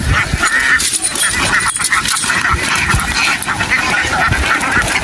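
A large flock of domestic ducks quacking together in a dense, continuous chorus, with a low rumble underneath.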